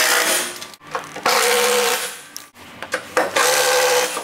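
Cordless power driver with a socket running in three bursts of about a second each, backing out the bolts that hold a wheel balancer's base to its wooden shipping skid.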